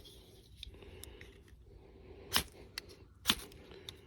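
The saw spine of a Leatherman Wave multitool scraped hard down a ferrocerium rod twice, about a second apart, each stroke a short sharp rasp. The saw's teeth bite the rod well and throw a good shower of sparks.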